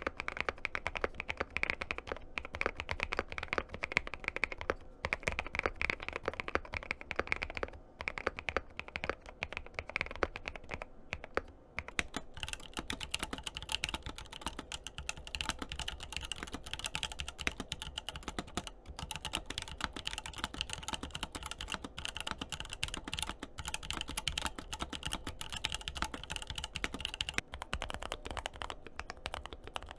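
Fast, continuous typing on a mechanical keyboard: a dense run of key clacks with short pauses here and there. The tone of the keystrokes changes about twelve seconds in, becoming brighter and higher.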